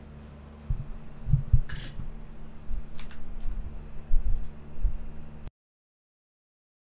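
Faint scattered clicks and a few low thumps over a steady low hum, cutting off suddenly to dead silence about five and a half seconds in.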